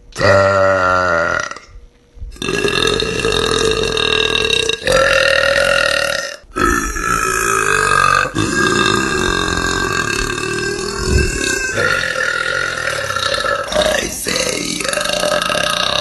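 A young woman burping loudly, over and over: a short deep burp at the start, then long drawn-out burps of several seconds each that run on almost without pause.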